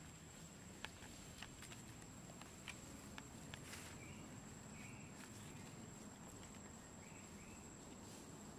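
Quiet outdoor ambience: a steady high-pitched insect drone, scattered faint crackles of dry leaves as baby macaques move over leaf litter in the first few seconds, and a few faint short chirps.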